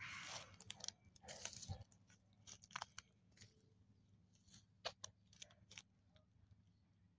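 Quiet crunching and rustling in dry leaf litter, with a few rustles in the first two seconds and then scattered small clicks and crackles.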